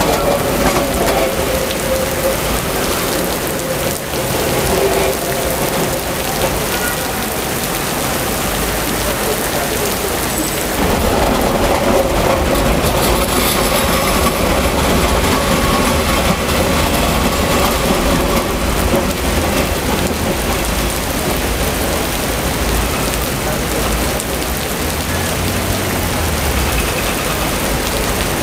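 Heavy rain pouring onto a flooded street, steady and loud. A tram passes close through the middle, adding to the noise for several seconds.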